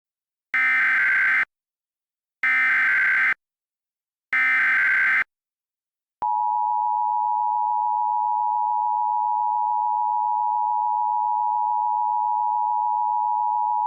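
Emergency Alert System opening: three bursts of the SAME digital header, each a warbling data screech just under a second long, evenly spaced. They are followed about six seconds in by the EAS two-tone attention signal, a steady dual tone (853 and 960 Hz) that holds and is still sounding at the end. These tones announce the start of an emergency alert broadcast.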